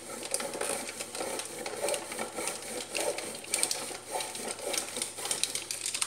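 Dark compound chocolate bar being grated over the metal blade of a plastic grater slicer: a run of short, uneven scraping strokes.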